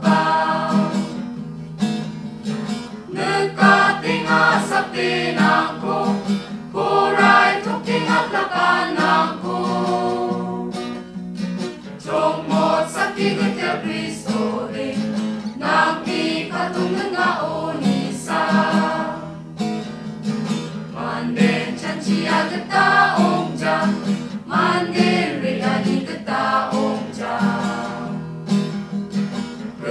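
Mixed choir of men's and women's voices singing a Garo-language song in harmony, accompanied by a strummed acoustic guitar. The singing goes in phrases of a few seconds with short breaks between lines.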